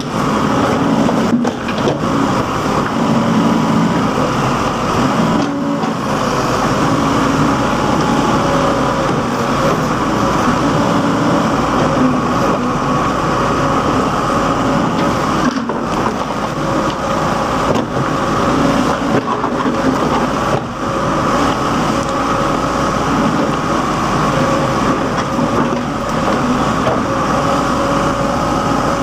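Case 580 backhoe loader's diesel engine running steadily under working load while the backhoe digs, the level dipping briefly a few times.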